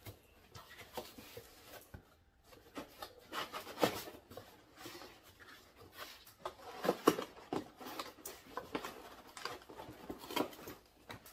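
A cardboard box taped shut with packing tape being worked open by hand: irregular rubbing, scraping and rustling of cardboard and tape, with a few sharper scrapes about four and seven seconds in.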